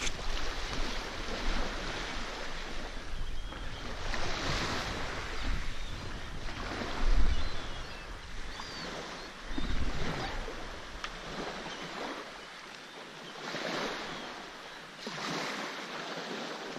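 Small waves washing in and drawing back over a pebble beach, rising and falling every few seconds, with wind gusting on the microphone.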